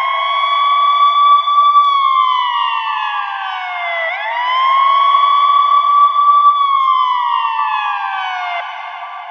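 Ambulance siren in a slow wail: the pitch climbs quickly, holds, then glides down slowly, twice over. The wail stops near the end and the sound fades away.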